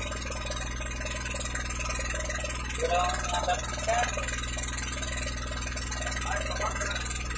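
A small boat's motor running steadily at an even pitch as the boat moves along the river.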